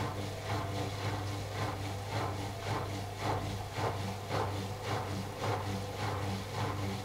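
AEG Lavamat L88489FL front-loading washing machine turning its drum during the wash cycle. The laundry and water swish at a steady rhythm of about two strokes a second over a constant low motor hum.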